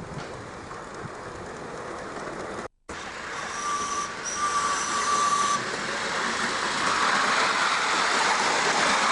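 Miniature live-steam locomotive running along its track, a steady hiss of steam and running gear that briefly cuts out about three seconds in. A thin steady tone sounds twice around four to five seconds in, and the hiss grows louder near the end as the engine comes close.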